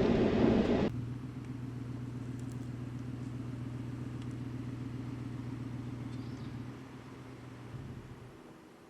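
Truck engine running with a steady low hum. Near the end the hum drops off and fades away.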